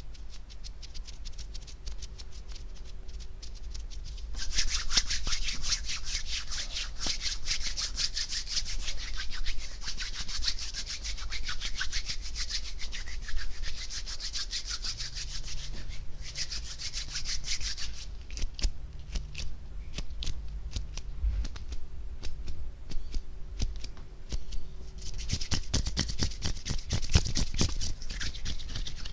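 Bare hands rubbing and brushing together close to a foam-covered microphone: a fast, dry swishing in long loud stretches, with quieter spells of lighter rustling in between.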